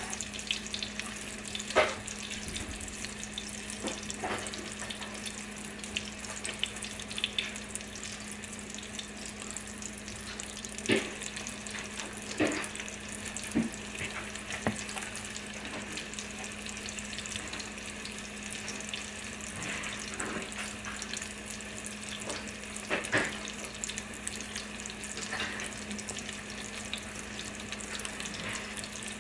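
Ground-meat patties sizzling steadily in hot oil in a skillet, with a steady low hum underneath and a few short sharp knocks scattered through.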